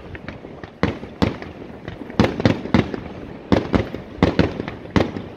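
Aerial firework shells bursting in quick succession: about a dozen sharp bangs in clusters of two or three, each trailing off, with fainter pops in between.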